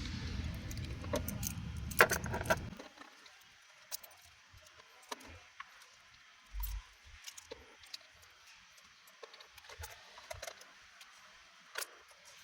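Metallic clicks and clinks of a socket wrench working a bolt on the instrument cluster's mounting bracket, loudest in a quick cluster about two seconds in, then scattered light clicks. A low hum drops out about three seconds in.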